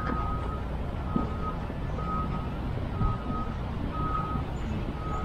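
A vehicle's reversing alarm beeping, one short steady tone about once a second, over a low rumble of engine and traffic.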